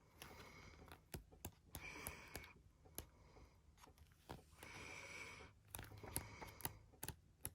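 Pages of an album photo book being turned by hand: several faint paper rustles, each under a second long, with light clicks and taps between them.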